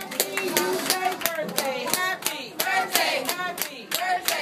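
A group of restaurant cast members clap a steady beat, about three claps a second, while singing a birthday song.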